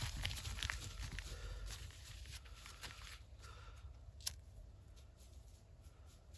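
Faint rustling and crackling of dry twigs, leaves and paper being handled to lay a campfire, with a single sharp click about four seconds in.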